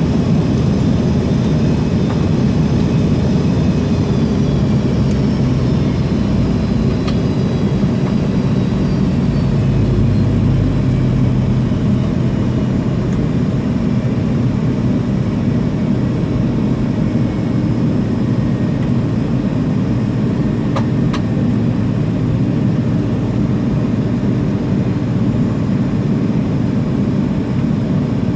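Cabin noise inside an MD-80 on the ground before takeoff: its rear-mounted Pratt & Whitney JT8D turbofans running steadily at low power, a deep rumble with faint high whines slowly falling in pitch. There are a couple of small clicks.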